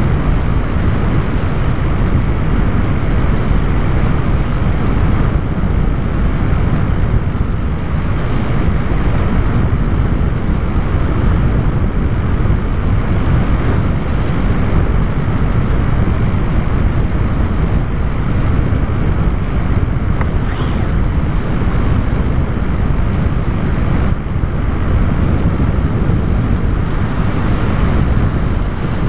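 Steady rush of wind and airflow noise picked up by the onboard action camera of a radio-controlled FPV plane in flight. A short high-pitched tone sounds about two-thirds of the way through.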